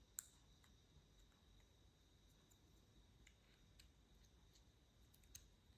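Near silence with a few faint, sharp clicks of the key fob's plastic case parts being handled and fitted together.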